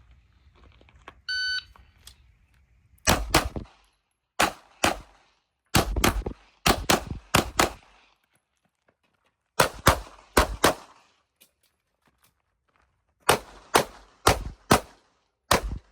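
A shot timer beeps once, about a second in, to start an IPSC stage. About twenty pistol shots follow, mostly in quick pairs (double taps), in bursts with short pauses between shooting positions.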